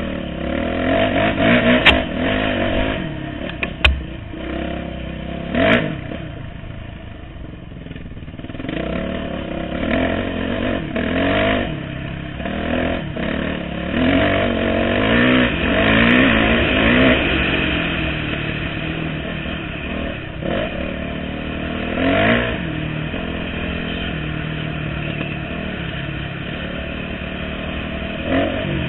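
Dirt bike engine revving up and down as it is ridden along a rough trail, with several sharp knocks in the first six seconds.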